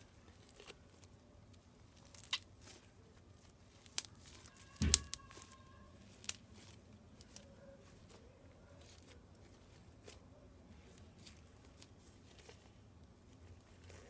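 Crunchy slime being squeezed and pressed by hand, giving scattered crackles and pops. The loudest cluster of pops comes about five seconds in.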